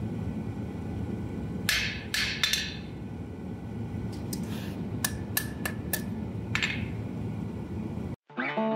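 Hand hammer striking a small mild-steel leaf held in tongs on the anvil: about ten blows in uneven groups, several with a short metallic ring, over a steady low rumble. Guitar music cuts in near the end.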